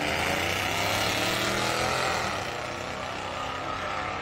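A Studebaker Avanti and a Pontiac GTO launching side by side from the drag strip start line, their V8 engines revving hard at full throttle. The engine note climbs in pitch for about two seconds, then fades as the cars pull away down the track.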